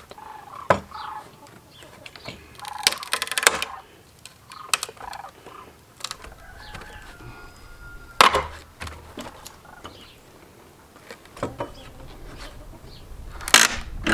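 Dry, weathered pallet boards being pried off their runners with a Pallet Buster: a few sharp cracks and squeaks as the nails pull out of the wood, the loudest crack about eight seconds in and another near the end. Chickens call in the background.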